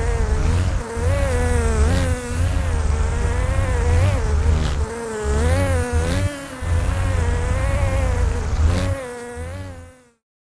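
A buzzing sound effect: a loud, wavering, insect-like buzz over a low pulsing bass, cutting off suddenly near the end.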